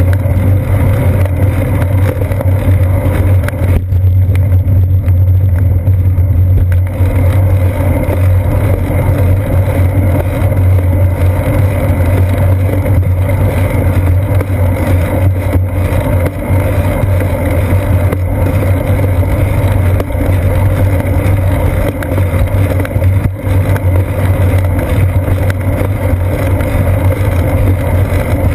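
Steady low rumble of wind and road vibration picked up by a seat-post-mounted GoPro Hero 2 on a moving bicycle. The high hiss thins briefly about four seconds in.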